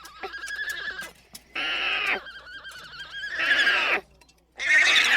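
Alpaca humming: a wavering hum that alternates with three louder, short calls, about two seconds apart. The last and loudest call starts about four and a half seconds in.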